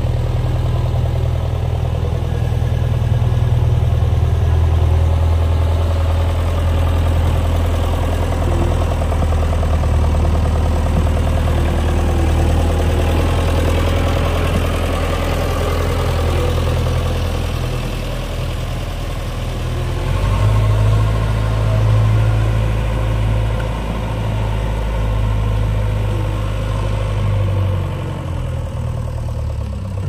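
JCB 3DX backhoe loader's diesel engine running steadily with a low, even hum; about two-thirds of the way through its note shifts as the revs change.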